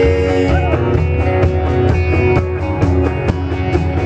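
Live country-rock band playing: guitars over a steady drum beat.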